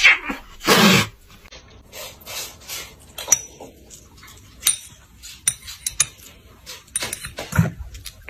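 A metal spoon clinking and tapping against a small ceramic dish in sharp, irregular clinks as a kitten eats from it and paws at the spoon. A brief loud burst of sound comes about a second in.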